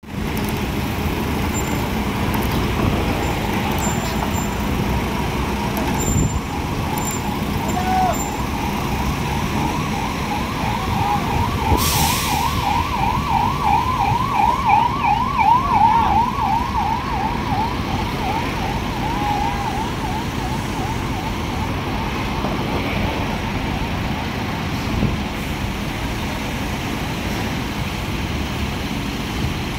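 Diesel engines of pick-and-carry mobile cranes running steadily under load as they hoist a steel coil. A siren-like warbling tone, rising and falling about three times a second, sounds over them for around ten seconds in the middle, and there is one sharp knock about twelve seconds in.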